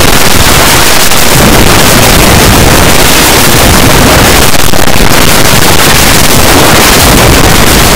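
A song deliberately overdriven into extreme clipping ('earrape'), heard as a steady wall of distortion noise at full volume, with no recognisable melody or words.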